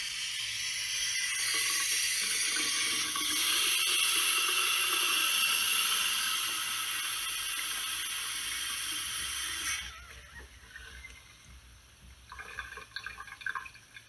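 Water running steadily from a household tap, getting a little louder about three seconds in, then shut off abruptly about ten seconds in. A few faint clinks follow near the end.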